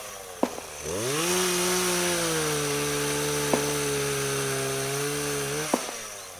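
A small engine, likely a chainsaw-type motor, revs up quickly about a second in, holds a steady high speed for several seconds, then winds down near the end. A few sharp clicks sound over it.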